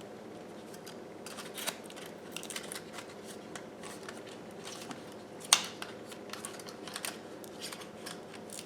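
Small plastic clicks and rustling handling noises as a folding mini drone's arms and blades are swung out, with one sharp click about five and a half seconds in.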